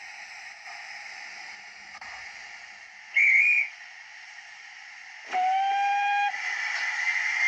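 Steam whistle sounds from a sound-fitted OO gauge model pannier tank locomotive: a short, high, wavering toot about three seconds in, then a longer, lower whistle lasting about a second. The lower whistle is followed by a steady hiss of steam.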